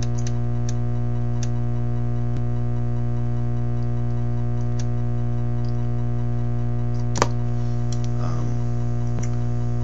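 Steady electrical mains hum from the radio bench setup, a constant low drone with several steady overtones. A few faint clicks sound through it, with one sharper click about seven seconds in.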